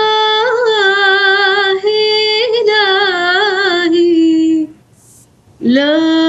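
A woman singing a hymn unaccompanied, holding long notes with vibrato and melodic ornaments on a single vowel. Her voice stops for a breath a little under five seconds in and comes back on a new held note about a second later.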